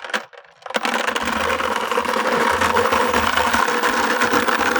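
A long chain streaming rapidly up and out of a bucket under its own momentum, in a chain fountain: a loud, continuous rattling clatter that starts about a second in and cuts off suddenly.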